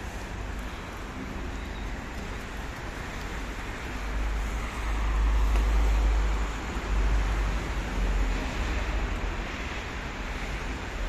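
Road traffic noise from a busy multi-lane street, a steady wash of passing cars that swells into a louder low rumble from about four to seven seconds in.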